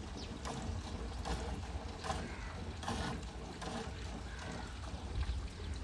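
Cow being milked by hand: streams of milk squirt into a steel bucket of frothy milk, a short hissing spurt with each squeeze, about two a second, over a steady low rumble.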